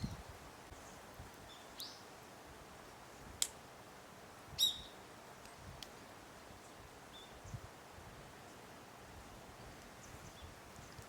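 Quiet outdoor rural ambience with a few short bird chirps, the loudest about four and a half seconds in, and a single sharp click about three and a half seconds in.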